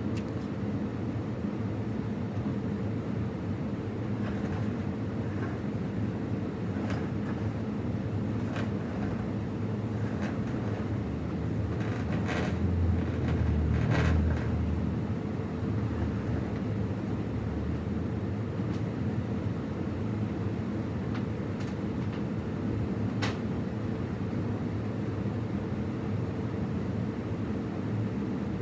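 Vacuum cleaner running steadily with a constant motor hum, a few short sharp clicks along the way and a louder low rumble for a couple of seconds about midway.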